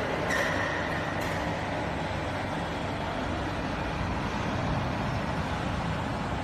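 Steady background noise of a metal-fabrication workshop, with a faint high whine in the first second.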